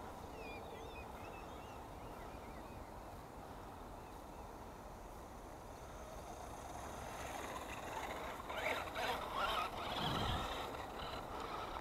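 Faint chirping of small birds at first. Then a 1/10-scale brushed 4WD RC truck's electric motor and tyres grow louder over the second half as it drives across rough grass up to the microphone.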